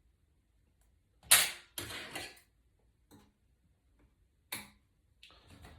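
A few sharp clacks and rustles from handling small parts and tools on a work surface. The loudest clack comes about a second in, followed by a rougher rustle, two lighter clicks, and a short stretch of scraping near the end.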